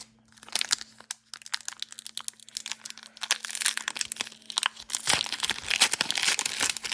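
Plastic-foil trading card pack wrapper being torn open and crinkled by hand, a dense run of crackles and sharp clicks that thickens in the second half.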